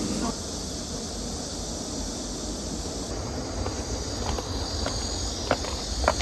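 Outdoor ambience: a steady high, insect-like hiss over a low rumble, with a few sharp clicks near the end.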